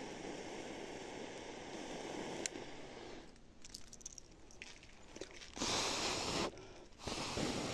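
Rushing air close to the microphone as a smouldering fibre smoke torch is worked to smoke out a rafter honeybee hive: a steady low rush for the first few seconds, then two loud gusts of about a second each near the end.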